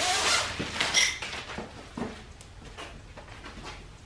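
A roll of screen mesh being handled and unrolled over a screen door frame: a rustle, then a few light knocks and scrapes.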